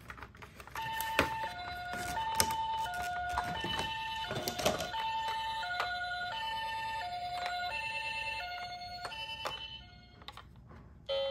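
Toy ambulance's electronic siren playing a two-note hi-lo "pee-poh" ambulance pattern, a little over a second per pair of notes, which stops about a second before the end. Sharp clicks and crackles of the plastic blister packaging being handled sound over it.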